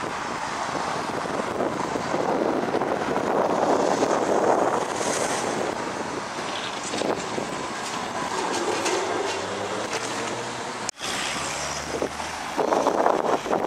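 Street traffic at a junction: trolleybuses and cars passing, mainly tyre and road noise with wind on the microphone. There is a brief dropout about eleven seconds in, then a louder passing swell.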